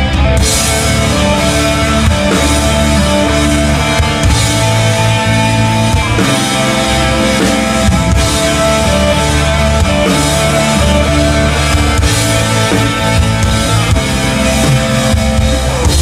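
Live band playing in concert: drum kit with cymbals that come in about half a second in, acoustic and electric guitars, and long held melody notes over a heavy low end.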